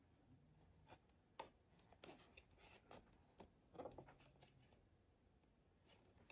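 Faint, irregular taps and scrapes of a paperboard watch box being handled, its white outer sleeve sliding off the black inner box.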